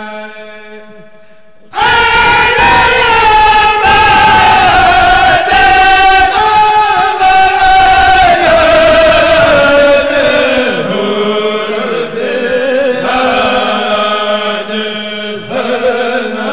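A group of men chanting a Mouride khassida through microphones. A softer held phrase fades out, then about two seconds in a loud voice enters on one long held note that slowly sinks in pitch over about ten seconds while the others keep chanting.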